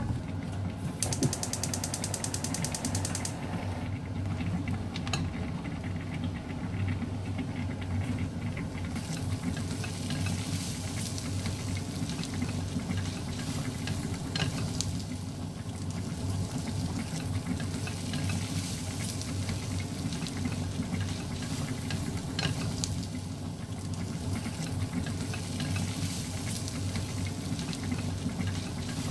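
Stovetop cooking: a steady low hum under scattered clinks and stirring noises, with a run of rapid, even ticking a second or so in.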